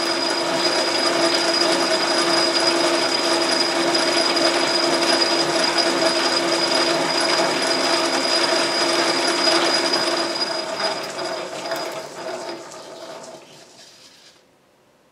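Logan metal lathe running in back gear, a steady mechanical gear whine, while a boring bar chases internal threads. About ten seconds in the lathe is shut off and coasts down, stopping near the end.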